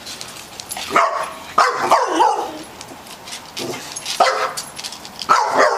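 A dog barking: about five short barks, a pair near the start and a quicker run near the end.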